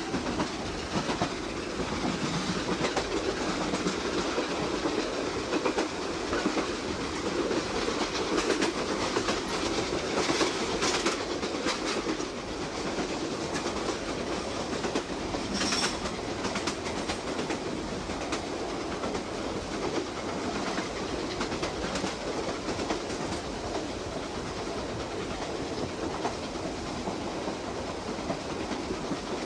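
Railway train running, from a vintage sound-effects record: a steady rumbling noise with many small clicks throughout and one sharper click about halfway through.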